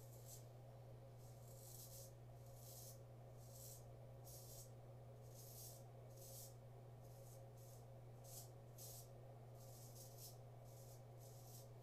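Custom 7/8-inch near-wedge straight razor scraping through lather and stubble on a shaved scalp: a series of short, faint scratchy strokes, about one or two a second, over a steady low hum.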